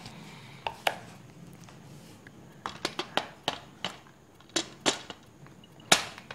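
Handling clicks and knocks as a DSLR camera is fitted onto a ball head mount: about a dozen sharp, irregular taps, the loudest near the end.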